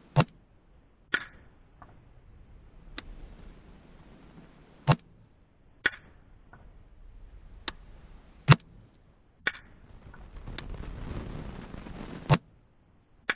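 Rifle shots fired one after another: about ten sharp cracks, irregularly spaced one to two seconds apart.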